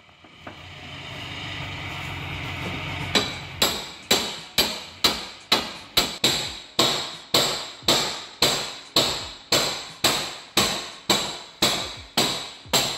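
Hammer blows on the steel front suspension of a BMW E46, about two a second, each a sharp metallic clang. They are striking to drive out a stuck suspension part. The blows start about three seconds in, after low steady noise.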